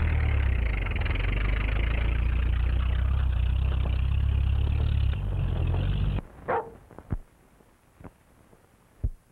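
An old open car's engine runs steadily as the car drives off, then cuts off suddenly about six seconds in. A few faint clicks follow.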